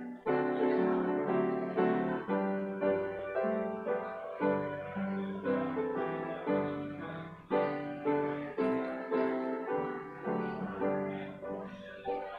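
Upright piano playing slow chordal hymn-style music, a chord struck about once a second and each left to ring.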